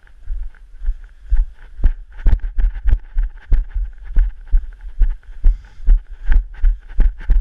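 Footsteps of a person walking briskly over frosty grass, heard as regular low thuds about two to three a second through a body-worn camera, each with a short crunch.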